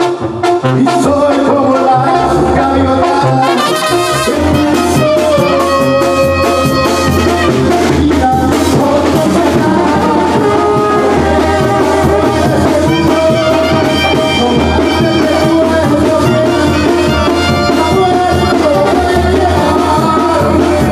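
Live brass band playing Latin dance music, with horns over a steady beat. The bass and drums fill out about four seconds in.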